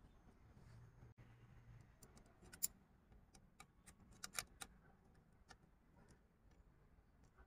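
Faint, scattered clicks of small plastic and metal parts: a main rotor blade being seated in the FW450 RC helicopter's rotor head and its grip bolt turned with a hex driver. The sharpest click comes about two and a half seconds in, with a few more around four seconds in.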